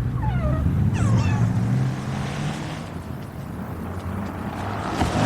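Kittens meowing, two short falling calls in the first second or so, over a low steady rumble.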